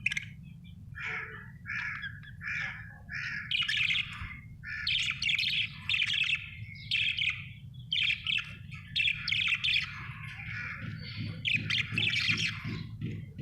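Budgerigar chirping and chattering: a quick, continuous run of short chirps and warbled notes, over a low steady hum.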